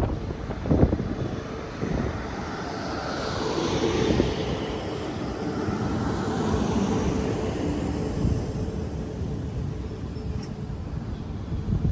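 A train passing, with a steady rumble that swells in the middle and eases off toward the end, and some wind on the microphone.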